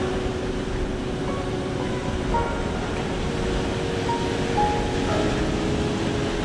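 Steady rush of surf breaking on the beach, with a low rumble of wind, under soft background music of held notes.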